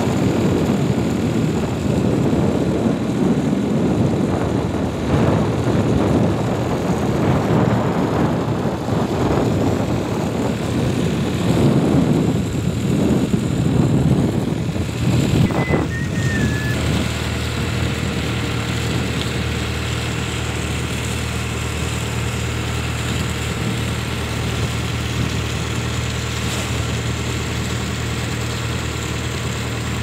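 Boat engine running steadily, with wind noise on the microphone that is gustier in the first half. A brief high chirp sounds about halfway through.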